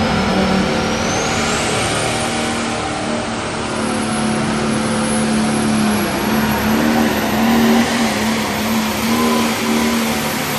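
Turbocharged diesel engine of a light pro stock pulling tractor running hard and loud, its note wavering. A high whine climbs in pitch during the first two seconds.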